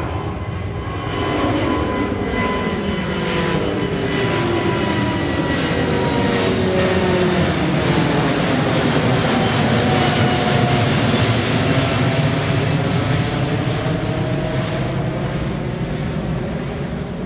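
Jet airliner's engines at takeoff power: a loud, steady roar that swells to a peak about ten seconds in and eases slightly near the end, with several whining tones sliding down in pitch.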